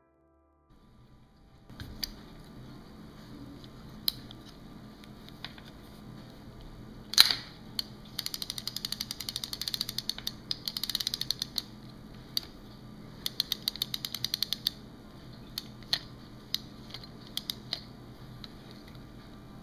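Vintage Shakespeare 2052 worm-gear spinning reel being worked by hand: its mechanism clicks rapidly in runs as the handle is turned, with scattered single clicks and one louder snap about seven seconds in. A faint steady hum lies underneath.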